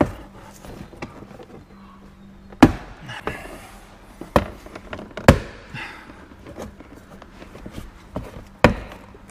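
Plastic retaining clips of a Fiat 500X door trim panel popping loose as the panel is pulled away from the door: about five loud sharp snaps, with smaller clicks and knocks between them.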